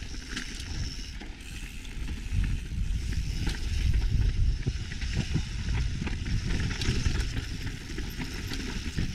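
Mountain bike rolling fast over a gravel trail: tyres on loose stones with scattered clicks and rattles from the bike, under a heavy wind rumble on the camera microphone that grows louder about two seconds in.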